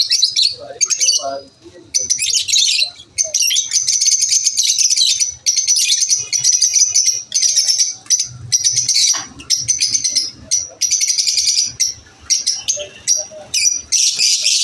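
Lovebirds chirping in a rapid, almost unbroken stream of high-pitched chirps, with only brief pauses.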